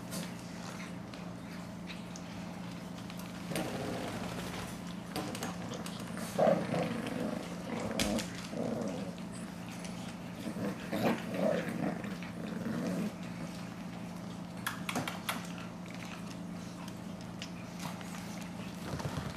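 Shih Tzu puppies play-growling in irregular bursts as they wrestle and tug at a towel, with a few sharp clicks and taps from paws and claws on a hardwood floor. A steady low hum runs underneath.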